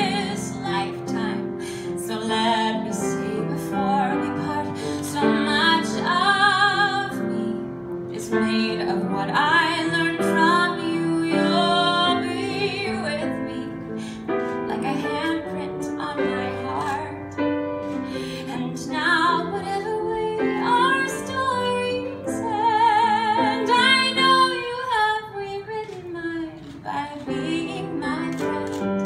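A woman singing a slow show-tune ballad with a live grand piano accompaniment, with wide vibrato on her held notes.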